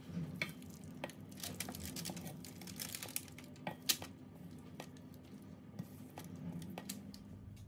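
Thick, wet vegetable batter being scraped out of a stainless-steel mixing bowl with a silicone spatula and dropped onto parchment paper: irregular scrapes, soft squelches and clicks with paper crinkling. The sharpest click comes about four seconds in.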